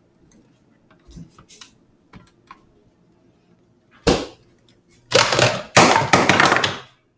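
Plastic blender jar and lid being handled: a few light taps, a sharp knock about four seconds in, then nearly two seconds of loud clattering noise.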